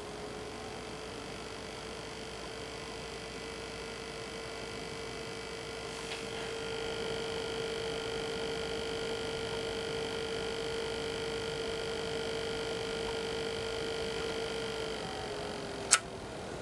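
Swiftech H220 liquid-cooler pump spinning up with a steady whine that climbs slightly, gains higher overtones about six seconds in, then falls away as it slows near the end. The owner calls it a grinding, clicking noise and wonders whether it is an air bubble or a failing pump. A single sharp click near the end.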